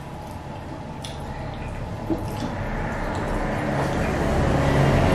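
Soft wet squishing and a few small clicks of fingers kneading fufu and scooping egusi soup from plates, over a steady background noise that grows louder toward the end.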